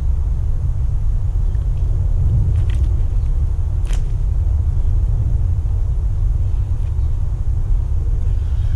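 Steady low rumble of wind buffeting the microphone, with a couple of faint clicks near the middle.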